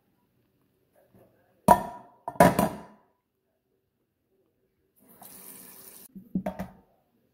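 A metal saucepan knocks twice against a colander in a stainless steel sink, with a little ringing. Then a kitchen tap runs briefly into the empty pot and stops, followed by a couple of clanks as the pot is moved in the sink.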